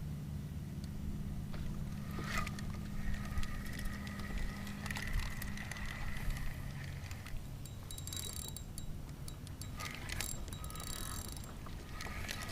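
Fishing reel being cranked, a steady whir for several seconds followed by rattling and clicking, over a low rumble.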